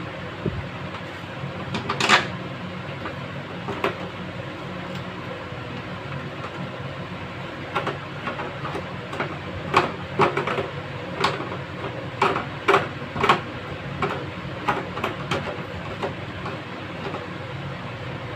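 Sharp plastic clicks and knocks from handling and snapping together a water purifier's plastic frame and filter-holder clips, one strong knock about two seconds in and a quick run of them in the second half, over a steady low background hum.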